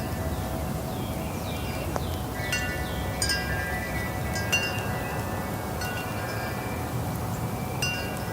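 Wind chimes ringing. Clusters of strikes come every second or two, with several tones overlapping and dying away, over a steady low rumble.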